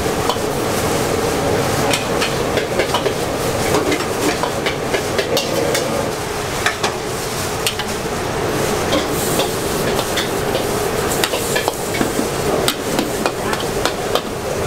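A metal spatula scraping and clanking against a wok as pad thai is stir-fried, with irregular sharp clinks over a steady sizzle of frying.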